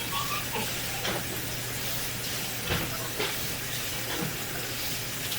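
Water running steadily from a bathroom sink faucet, an even hiss, with a faint low hum and a few small clicks.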